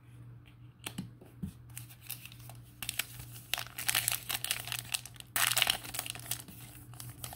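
Plastic trading-card pack wrapper being handled and torn open, a run of crinkling and crackling that starts faint and grows louder about three seconds in.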